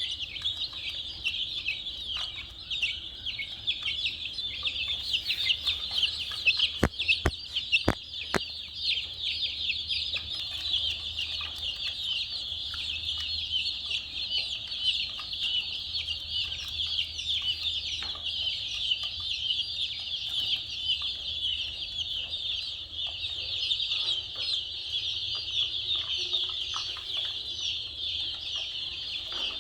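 A flock of baby chicks peeping nonstop, many high, short chirps overlapping into a continuous chatter. A few sharp clicks come about seven and eight seconds in.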